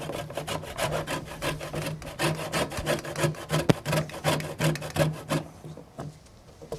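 A lemon being zested on a rasp grater: quick repeated scraping strokes, several a second, easing off briefly near the end.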